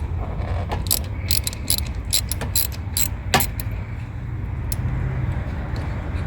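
Hand ratchet wrench clicking in short irregular runs while loosening the battery terminal nuts, over a steady low rumble.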